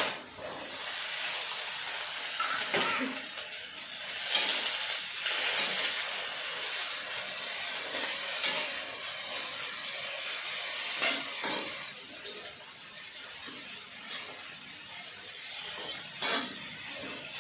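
Food frying in hot oil in a pan, a steady sizzling hiss with a few short knocks.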